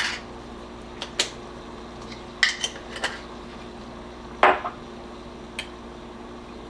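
Light clinks and taps of kitchen utensils and containers being handled, about eight short knocks spread over several seconds, the loudest a little past four seconds in with a brief ring. A faint steady hum runs underneath.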